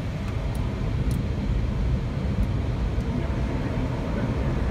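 Steady rushing noise of an Airbus A320 in flight, heard inside the cockpit: airflow and engine noise, with a few faint clicks.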